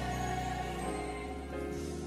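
Soft, slow background music with sustained chords.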